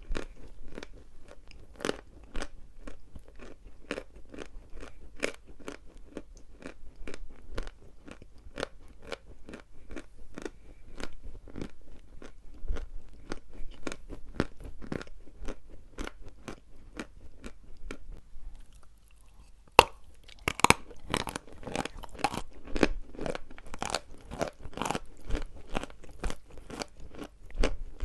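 Dry chalk being chewed close to the microphone, crunching in a steady rhythm of about two to three crunches a second. About two-thirds of the way in, the chewing stops briefly. Then a sharp snap, as of a fresh bite, is followed by louder, denser crunching.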